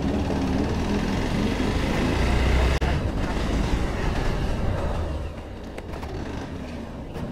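Motorcycle engine running at low speed, a steady low rumble that gets noticeably quieter about five seconds in.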